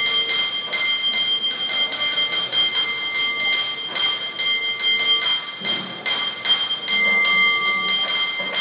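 Cable car bell rung in a fast, rhythmic pattern of clapper strikes, each stroke ringing on over the next.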